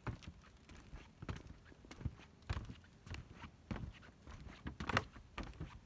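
Footsteps on an asphalt-shingle roof: a slow, uneven series of soft steps.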